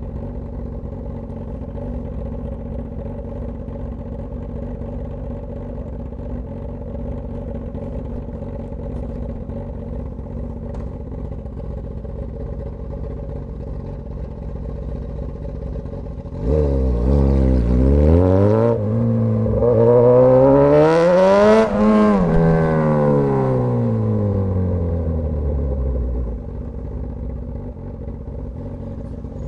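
Straight-piped Suzuki GSX-S1000 inline-four running at a steady low rumble, then, a little past halfway, opening up loudly with its pitch climbing to a peak and falling back as it eases off.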